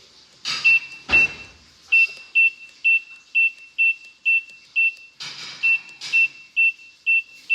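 Microwave beeping: a run of short, high, identical beeps about two a second, with a brief break and some handling noise about five seconds in.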